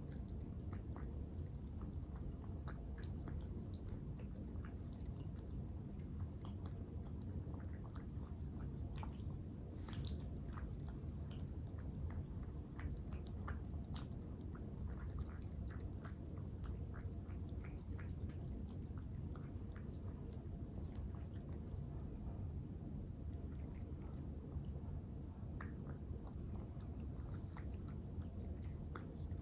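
Two Norwegian Forest Cats eating from ceramic bowls: many small, irregular clicks of chewing and crunching, over a steady low hum.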